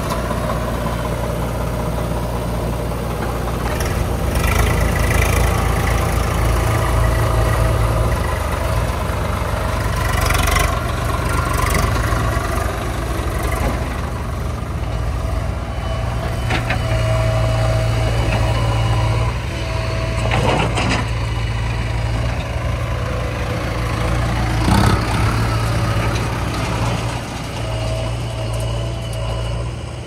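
Diesel tractor engines running, with their pitch and level rising and falling as a tractor pulls a trolley loaded with murum away and another tractor moves in. A few short metallic clanks sound over the engines.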